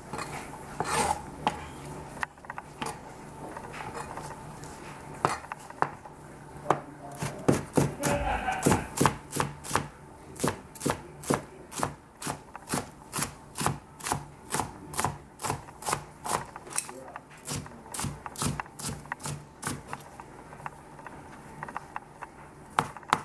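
Cleaver chopping bell pepper strips into small dice on a plastic cutting board: a few scattered cuts at first, then a steady run of knife strokes on the board, about two or three a second, from about seven seconds in, thinning out near the end.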